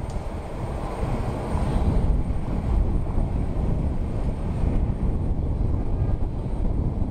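Jet aircraft engine noise across the airport, a steady rush that swells a little about a second in and eases after about five seconds, over a low rumble of wind on the microphone.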